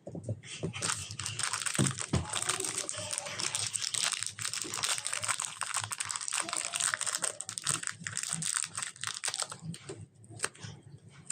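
Hands kneading and squishing slime, making a dense run of small clicks and crackles that thins out near the end.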